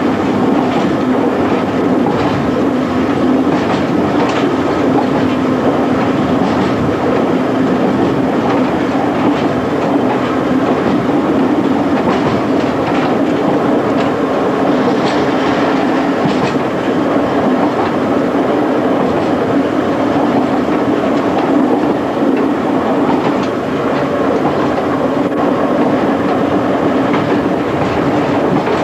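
A 1927 Standard stock electric train, ex-London Underground, running steadily along the line, heard from the driving cab: a continuous rumble and low hum, with the wheels clicking irregularly over rail joints.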